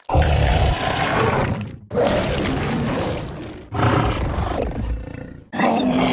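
Kaiju-style monster roar sound effects: four harsh roars in a row, each starting abruptly and fading over nearly two seconds.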